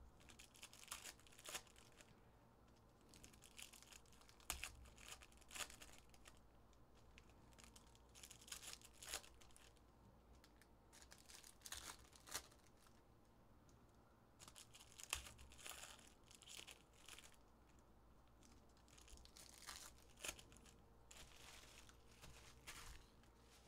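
Faint rustling and crinkling of trading cards and their foil pack wrappers being handled, in short irregular bursts every second or two with quiet gaps between.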